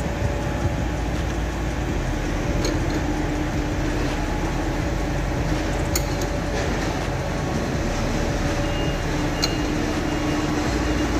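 Steady machine hum with a low rumble and a faint steady tone, with a sharp click about every three seconds.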